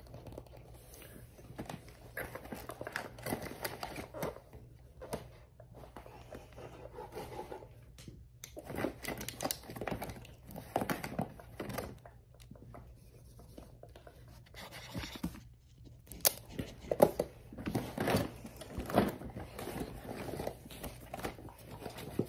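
Close-up handling of a cardboard colored-pencil box for ASMR: irregular scratching, tapping and crinkling noises, loudest in the second half.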